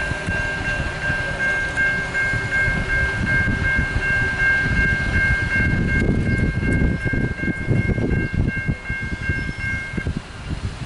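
Railroad grade-crossing warning bell ringing steadily while the crossing gates rise, cutting off suddenly about ten seconds in once the gates are up. Underneath is a train's low rumble, loudest toward the end.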